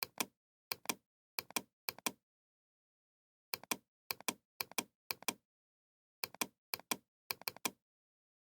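Computer keyboard keys clicking in quick pairs, about two pairs a second, in three runs of four pairs with short pauses between.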